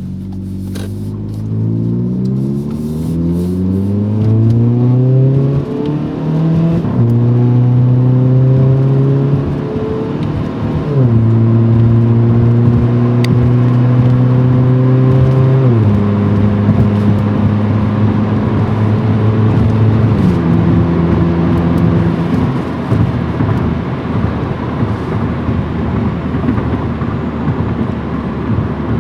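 Hyundai Veloster four-cylinder engine accelerating through a stainless cat-back performance exhaust. The exhaust note climbs steeply in pitch for about seven seconds, then drops in four steps as it changes gear, holding steady between them. In the last few seconds the engine tone gives way to a steady rush of road noise.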